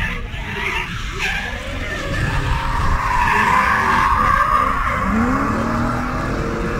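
Two drift cars sliding through a corner in tandem, tyres squealing and skidding under high-revving engines. The tyre noise is loudest about halfway through, and an engine rises in pitch near the end.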